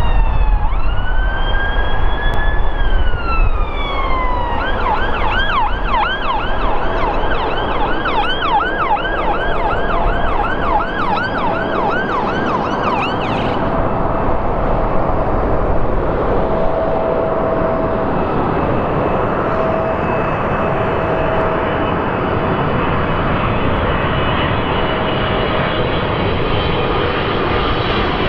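An emergency-vehicle siren sounds over a steady roar, first in a slow rising and falling wail, then in a fast yelp of about two cycles a second that cuts off abruptly about halfway through. The roar, a Boeing 777-300ER's GE90 engines on final approach to land, carries on alone after the siren stops.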